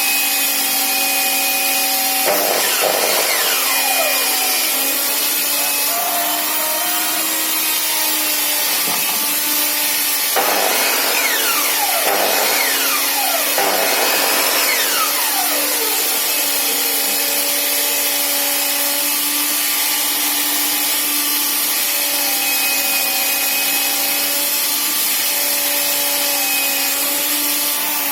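Electric sliding mitre saw (Wipro, 1800 W) running and cutting wood: a steady motor whine, with falling sweeps in pitch a couple of seconds in and again from about 10 to 16 seconds in.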